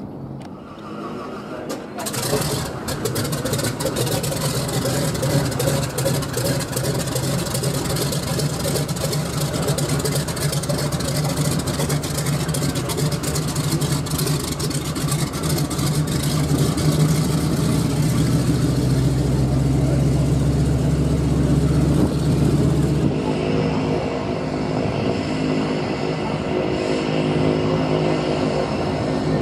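De Havilland Canada DHC-2 Beaver floatplane's radial engine running close by, with the propeller turning as the plane taxis on the water. It comes in loudly and suddenly about two seconds in, and the hissing noise above the steady engine hum drops away near the end as the plane moves off.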